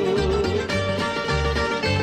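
Greek song playing as background music: an instrumental passage without singing, plucked-string notes over a steady bass beat.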